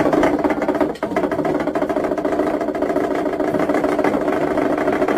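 A loud, steady, machine-like drone with a rough, buzzing texture. It breaks off briefly about a second in, then carries on.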